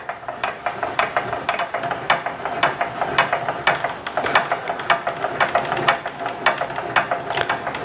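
Hand crank turning the threaded rod of a homemade test fixture, moving a weighted carriage slowly along an I-beam: a steady run of clicks at about four a second over a faint steady hum, as the load on a wooden half-lap test joint is gradually increased.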